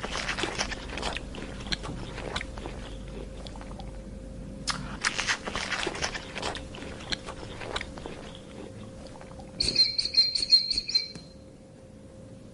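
An animal crunching and chewing food in bursts of quick, crisp bites. About ten seconds in comes a short, high-pitched chirping call of rapid pulses that stops suddenly.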